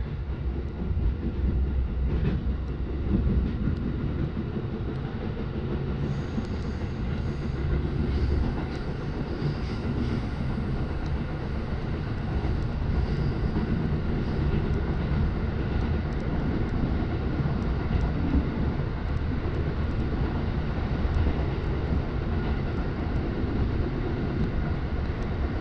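Running noise of a JR Joban Line commuter train heard from inside the car: a steady rumble of wheels on rails. A faint high whine rides over it from about six to thirteen seconds in.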